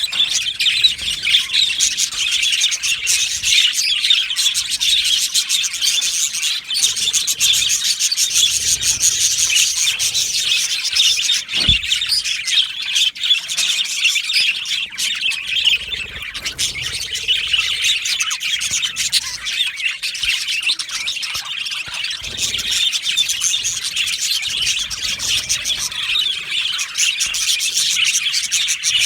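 A flock of budgerigars chattering without a break, with many quick overlapping chirps and warbles.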